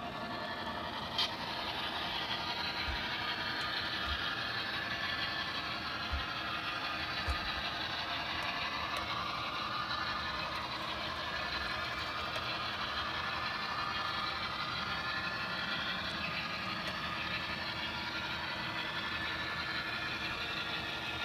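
HO-scale model train led by an Athearn Genesis FP7 diesel locomotive running along the track: a steady mechanical running sound, with a sharp click about a second in.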